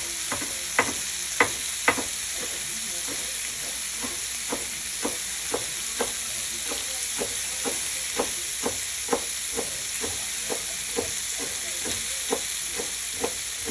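A chef's knife chopping a red onion on a wooden cutting board, with sharp knocks about twice a second, the loudest near the start. Under it, a steady sizzle from sausage and onion frying in a pan.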